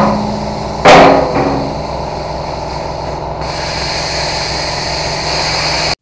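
Handheld plasma cutter cutting the nuts off a skid steer bucket's cutting-edge bolts: two sudden hissing blasts of air as the torch fires, about a second apart, then a steady hiss over a low machine hum, growing sharper after about three and a half seconds as the arc bites into the steel.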